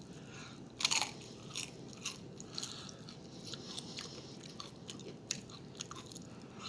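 Close-up eating sounds: a person chewing, with scattered short crunches and wet mouth clicks and one louder crunch about a second in.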